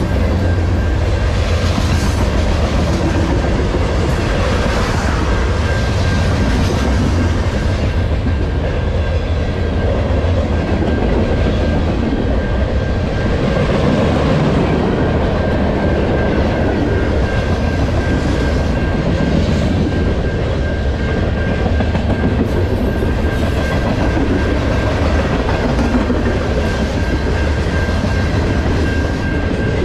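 Cars of a long freight train (boxcars, tank cars and autoracks) rolling past close by: a loud, steady rumble and clatter of steel wheels on the rails. A thin, steady high tone joins in about six seconds in.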